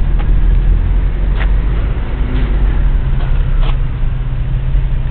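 Nissan 350Z's V6 engine running at a steady idle, a loud, even low rumble.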